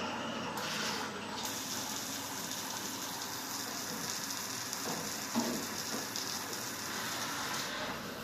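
Small CNC lathe turning aluminium: steady machine noise with a hiss that starts a little under a second in, breaks off briefly, then runs on until it cuts off near the end.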